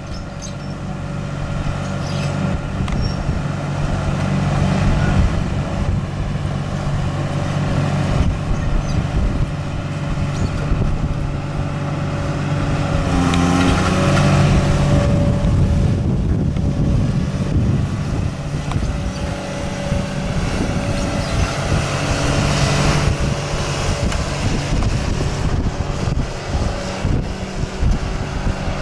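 Diesel engine of a tracked hydraulic excavator running steadily, its pitch dipping and recovering briefly about halfway through.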